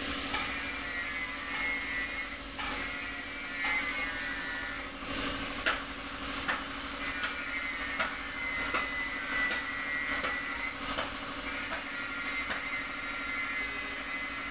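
Compressed-air paint spraying from a gravity-feed spray gun, hissing as paint is laid over a stencil. Under it runs a steady low mechanical hum, with scattered clicks and knocks.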